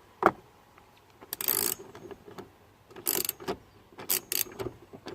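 A hand ratchet clicking in several short spurts, with some knocks, as a fastener inside a pickup truck door is worked loose.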